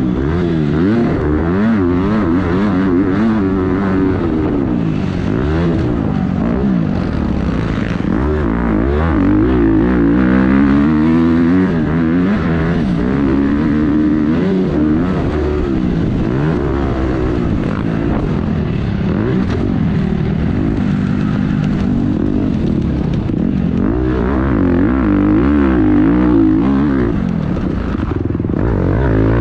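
Motocross dirt bike engine revving hard and falling back over and over as the rider works the throttle and shifts gears, heard up close from the rider's own helmet camera.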